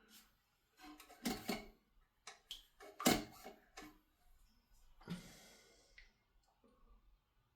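Plastic toilet fill valve being handled while its height is adjusted: a series of light plastic clicks and knocks, with a short scrape about five seconds in.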